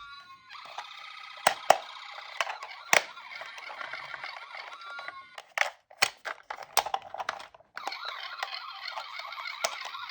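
Toy ambulance and police car sirens warbling and wailing over each other, broken by sharp clicks. They cut out briefly about seven and a half seconds in.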